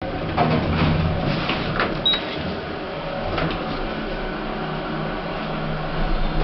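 Passenger lift car travelling between floors: a steady low hum from the drive, with a few knocks and rattles from the car in the first few seconds.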